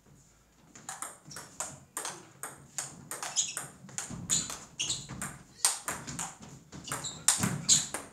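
Table tennis rally: the ball clicking sharply off the players' bats and the table top in quick succession, about two or three clicks a second, starting about a second in.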